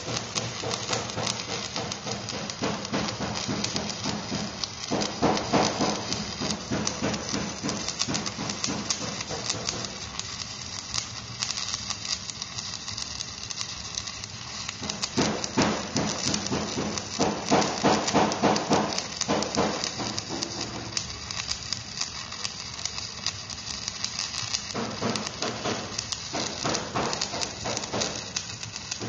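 Electric stick-welding arc crackling and sizzling steadily, growing louder in a few stretches, over a steady low hum.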